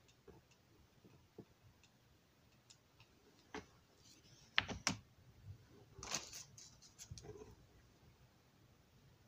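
Light clicks and taps as a model railroad building's wall section is handled and knocked against the workbench, a few louder knocks in the middle.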